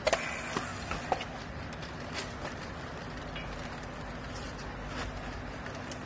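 Handheld strapping tool being worked on plastic baling straps around a clothes bale: a handful of sharp clicks and knocks, bunched in the first second and then once or twice more, over a steady machine hum.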